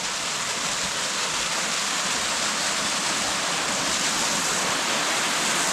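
Rushing water of a cascading mountain stream, a steady, even rush.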